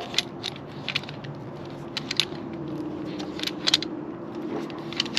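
Scattered metallic clicks and clinks of hand tools working a hydraulic hose fitting, over a steady low hum.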